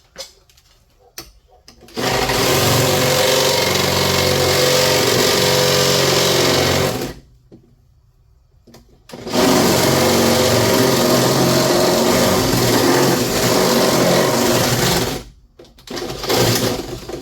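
Power drill running in long bursts while drilling a hole. It runs for about five seconds, stops for two, runs again for about six, then starts a shorter burst near the end. Two light knocks come before the first burst.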